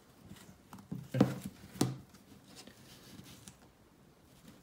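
Fiddling with a satin ribbon and a small card on a cardboard gift box: faint rustling and scratching, with two sharp taps about a second and two seconds in.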